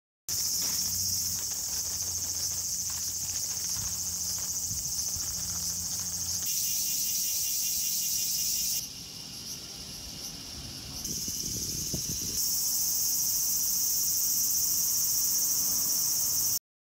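A steady, shrill chorus of insects calling, heard in several takes joined by abrupt cuts, with a rapid pulsing call in the middle section. A low hum sits under the first few seconds.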